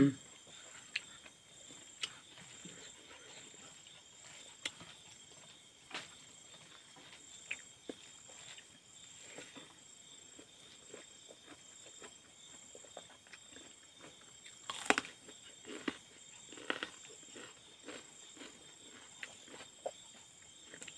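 Quiet eating sounds from a person eating rice by hand: soft chewing with sharp lip-smack clicks every second or two, and a short run of louder smacks about three quarters of the way through.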